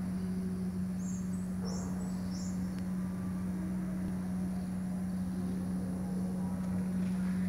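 Steady machinery hum in a concrete block plant, holding one even low tone throughout. Three short, high chirps come about one to two and a half seconds in.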